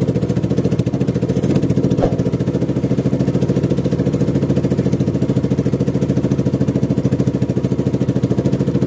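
Small boat engine running steadily at low speed, with a fast, even firing beat.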